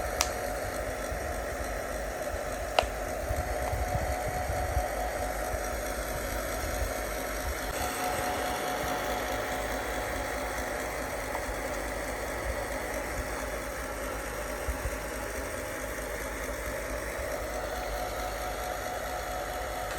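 Hot-air blower running steadily with a constant fan whine and hiss, heating the screen adhesive to soften it, with a couple of light clicks near the start.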